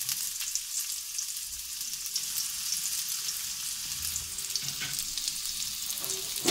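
Chopped onions frying in hot soybean oil in a karahi: a steady, high sizzle with scattered small crackles.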